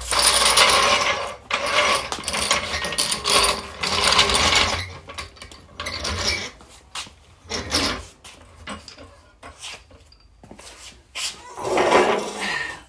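A power tool rattling in several bursts of one to two seconds, with scattered clicks and knocks of tools between them, as work goes on at the car's wheels.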